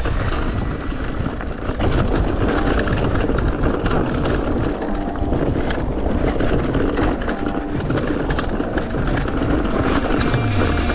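Mountain bike riding down a dirt bike-park trail: tyres on dirt and the bike rattling over bumps, with wind rumbling on the microphone.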